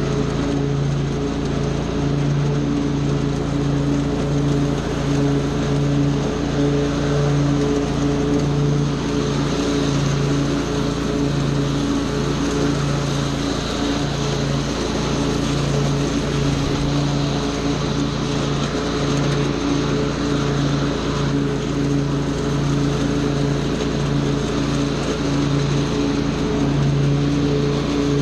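Gasoline lawn mower engine running steadily under load while cutting grass.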